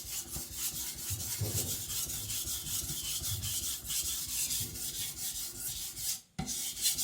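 Carbon-steel chopper blade being stroked back and forth on a coarse 300-grit Japanese natural whetstone: a steady, rhythmic gritty scraping, several strokes a second, as the stone thins the blade behind the edge. It breaks off for a moment about six seconds in, then resumes.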